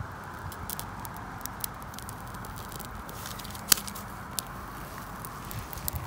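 Ferrocerium fire rod struck repeatedly to throw sparks onto birch-bark tinder: a series of short, sharp scrapes, the loudest a little under four seconds in, as the bark catches.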